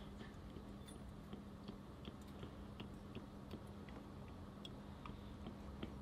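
Motor oil glugging from a plastic jug into a plastic funnel: faint, irregular small clicks and gulps, a few each second, over a steady low hum.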